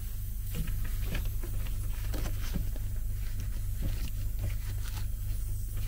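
Steady low hum of a passenger railcar's vacuum toilet system pump running to build vacuum, with scattered light clicks and knocks of hand-tool work on the line's hose clamps.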